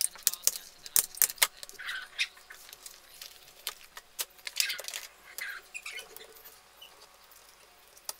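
Small handheld stapler snapping several times in quick succession in the first second or so, then paper being handled and shuffled, with a few short squeaky scrapes.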